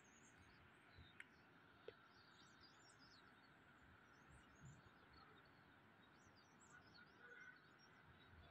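Near silence: faint, scattered high bird chirps over quiet outdoor air, with a couple of small clicks in the first two seconds.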